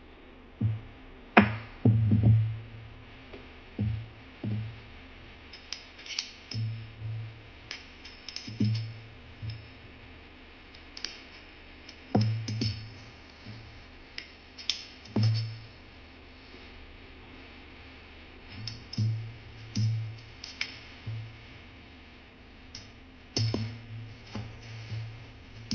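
Electronic music with a drum-machine beat: repeated low thumps and sharp, crisp clicks.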